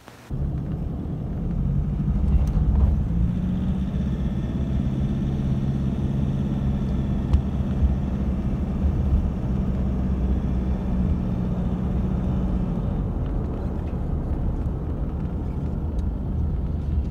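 A car driving along a road, heard from inside the cabin: a steady low engine hum over road rumble. The engine's steady tone fades out about three quarters of the way through, leaving the rumble.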